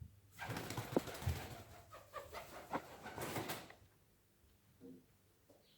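A pigeon's wings flapping and clattering in a flurry of about three seconds, then stopping.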